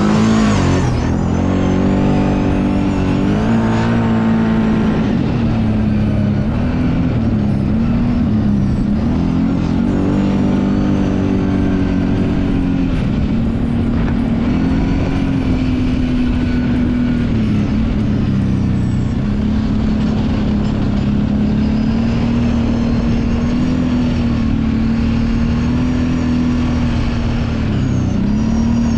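Kawasaki Brute Force 750 ATV's V-twin engine running under load while ridden, its pitch dipping and rising every few seconds with the throttle.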